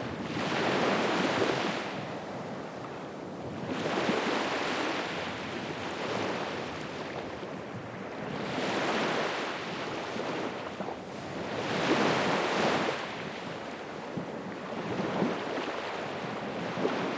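Pacific Ocean surf: waves breaking and washing up the shore, swelling and fading in surges every few seconds.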